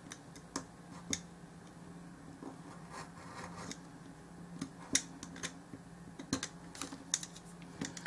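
Craft knife blade cutting and trimming the edges of a small piece of glued card on a cutting mat, making irregular light clicks and ticks, with a sharper click about five seconds in.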